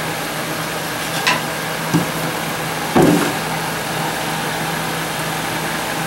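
Chambers dehumidifier's compressor and fan running with the case off, a steady low hum with airflow noise, still running with its bucket out of place. A few handling knocks sound over it, the loudest about three seconds in.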